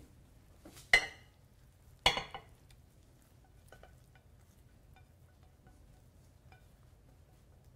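Kitchenware being handled while scrambled eggs are pushed from a nonstick skillet onto a plate with a rubber spatula: two sharp clinks about a second apart near the start, then only faint light scrapes and taps.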